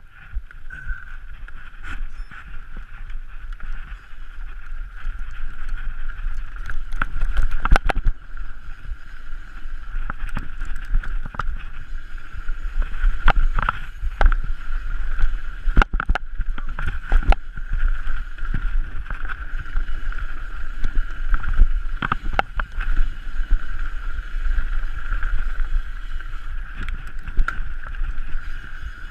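Mountain bike descending a rough enduro trail, heard from a camera mounted on the bike or rider: a continuous rumble of tyres and wind with a steady high buzz, broken by frequent sharp knocks and rattles as the bike hits bumps. It builds over the first few seconds as the bike picks up speed.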